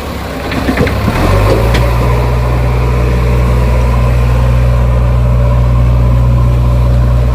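Heavy diesel machinery engine running steadily, with a few knocks in the first two seconds; about a second in the engine note steps up and then holds.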